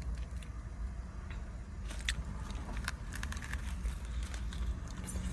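A person chewing food, with scattered small crunches and clicks over a steady low hum.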